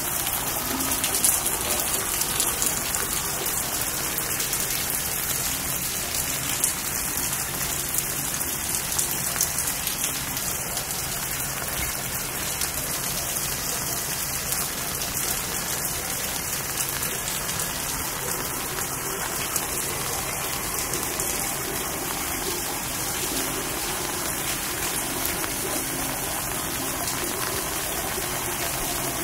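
Steady rain falling, an even hiss of drops with a few louder single drops landing close by now and then.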